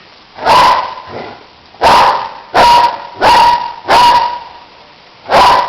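German shepherd barking loudly in single barks: one about half a second in, then a run of four evenly spaced barks, then one more near the end.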